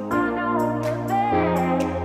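Background music: sustained keyboard chords changing about every second and a half, with a melody line over a light beat.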